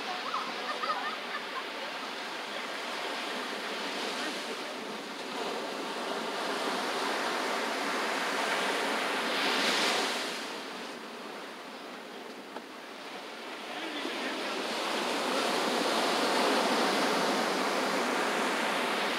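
Ocean surf breaking and washing up a sandy beach in swells. One wave crashes loudly about ten seconds in, then a longer surge builds near the end.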